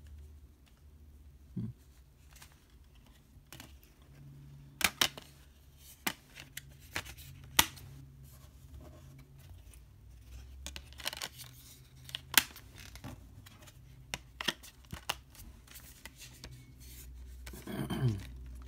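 Hands handling an open steelbook case with clear plastic disc trays and discs: scattered sharp clicks and taps of plastic and metal a second or so apart, over light rustling. A short low sound falling in pitch comes near the end.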